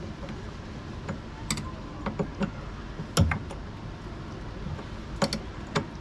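Irregular clicks and knocks of tools and parts being handled on a top-loading washing machine under repair, a few sharp knocks standing out over a steady low background noise.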